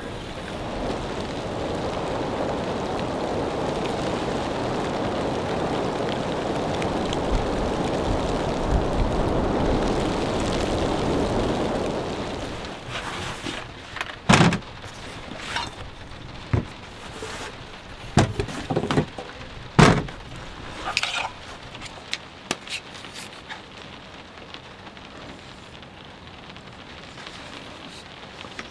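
Heavy rain falling on a pickup truck's canopy, heard from inside; it is loud for about twelve seconds, then quieter and steady. Several sharp knocks and clicks come in the middle, from gear being handled.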